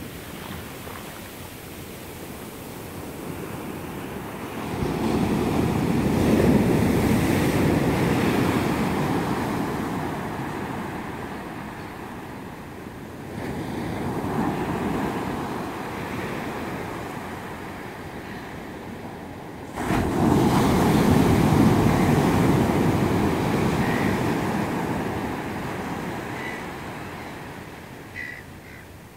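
Ocean surf breaking and washing up a sandy beach, with some wind on the microphone. It comes in three swells: a loud one about five seconds in, a smaller one midway, and a sudden loud one about two-thirds through. Each fades away slowly.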